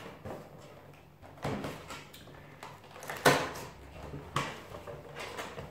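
Cardboard advent calendar being handled and its perforated door pushed open: three sharp knocks and scrapes of cardboard, the loudest about three seconds in.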